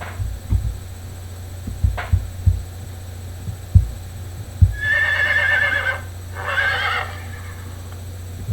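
Horse whinnying twice about five seconds in: two shaky, quavering neighs, the second just after the first. Before them come scattered dull thuds over a steady low hum.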